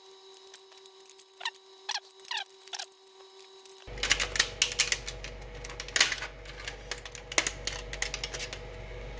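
3D-printed plastic support material being pulled and snapped off a printed part by hand. There are a few short squeaks as the plastic flexes in the first four seconds, then a quick run of sharp crackling clicks as the thin supports break away.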